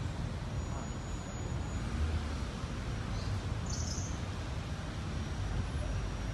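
Steady outdoor background noise, mostly a low rumble, with a brief faint high chirp about three and a half seconds in.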